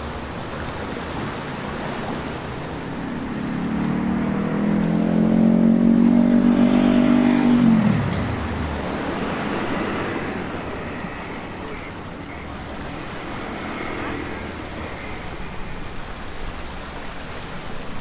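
A motor vehicle passing close by over a steady wash of waves on shoreline rocks. Its engine note swells from about three seconds in and is loudest around six to eight seconds, then drops steeply in pitch as it goes past and fades.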